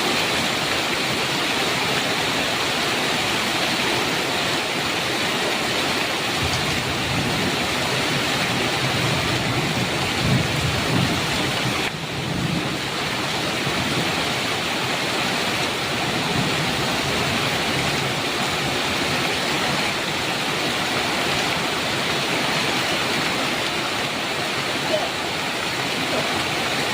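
Heavy rain pouring steadily on a metal roof, a dense even hiss. A low thunder rumble swells and fades in the first half.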